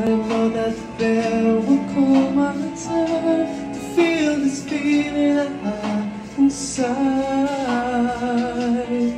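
Background song: a singer's voice carried over instrumental accompaniment.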